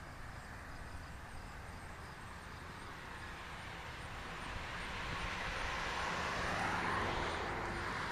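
A car passing on the street: road and engine noise swells to its loudest about seven seconds in, then begins to fade.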